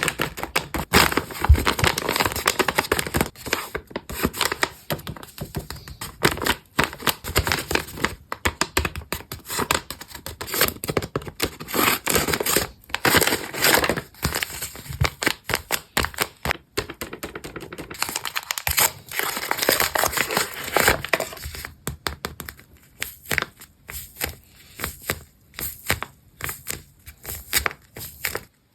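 Handmade paper blind bag being handled and opened: paper crinkling, rustling and tearing, with many small irregular crackles, sparser toward the end.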